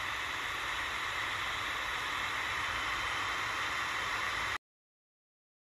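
Tecsun DR-920C shortwave radio hissing with steady static from its speaker while it is tuned between broadcasts on the shortwave band. The static cuts off suddenly about four and a half seconds in.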